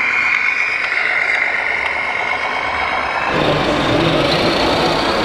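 Radio-controlled scale model trucks running: a steady high whine for about three seconds, then an abrupt change to a rougher, lower truck-engine sound like that of an RC truck sound module.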